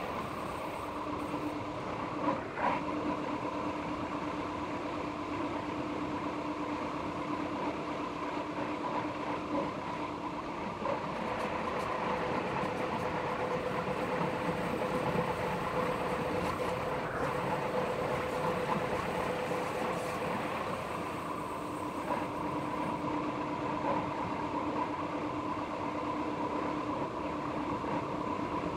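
Metre-gauge electric train of the Jura Railways running along the line, a steady rolling noise with a humming whine of a few tones. The whine's tones shift about ten seconds in and again about twenty-one seconds in, and a couple of brief knocks come about two and a half seconds in.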